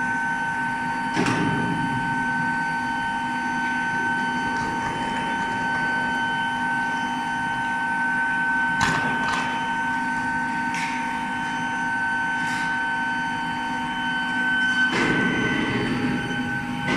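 Steady high-pitched whine of a medium-frequency induction melting furnace running, with a few sharp metallic knocks scattered through and a burst of rougher clatter near the end.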